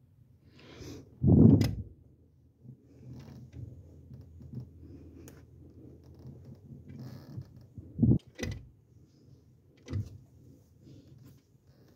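A few knocks and thumps over a low steady hum; the loudest is a heavy thump with a sharp click about a second in, with lighter knocks near the end.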